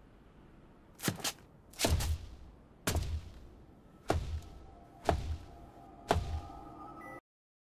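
Six heavy, booming thuds about a second apart with echoing tails, faint ringing tones after the later ones; the sound cuts off suddenly near the end.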